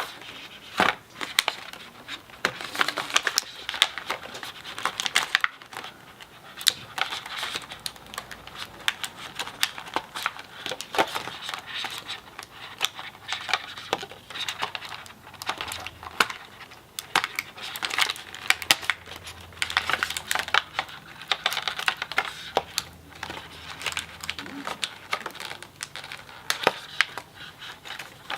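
Plastic toy packaging crinkling and tearing as small figures are unwrapped by hand, with irregular crackles and clicks throughout.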